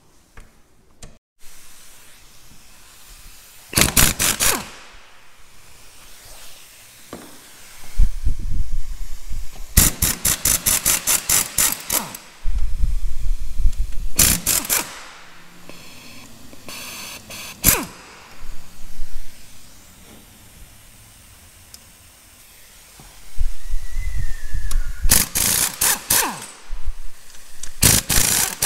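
Socket ratchet undoing the engine mount bolts: bursts of rapid, even ratchet clicking, with scraping and knocking of the tool and bolts in between and quieter gaps.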